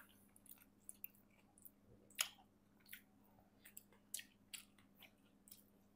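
Faint close-miked chewing: soft wet mouth clicks and squishes of someone chewing a mouthful of food, with one sharper click about two seconds in.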